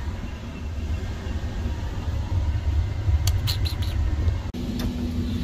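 Low, steady rumble of a passenger train running, heard from inside a sleeper berth, with a few short clicks about three seconds in.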